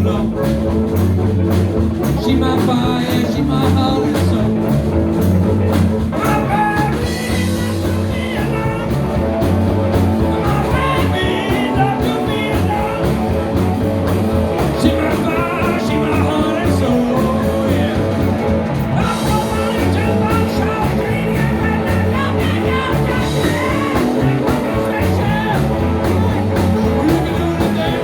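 Live rock and roll band playing: electric guitar, bass and drums with a steady beat.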